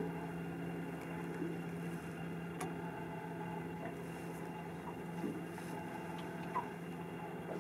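Faint steady low hum that weakens about five seconds in, with a few light clicks.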